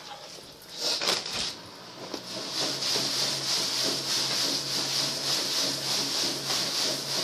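Mudjacking pump running, forcing slurry under a concrete slab. It is a steady hum with a hiss that sets in about two seconds in and holds evenly.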